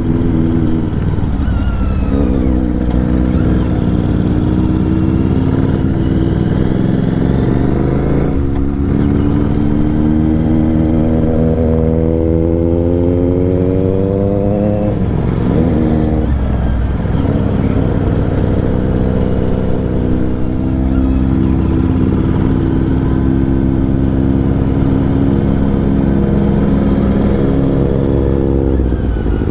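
Motorcycle engine with an aftermarket SC Project exhaust pulling under way. The pitch climbs steadily as it accelerates through a gear, drops sharply at the shift, then holds a steady cruise with another short dip partway through, over wind rush.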